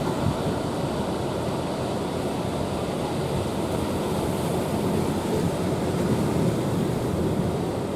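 Heavy sea surf breaking, a steady rushing noise, with wind buffeting the microphone.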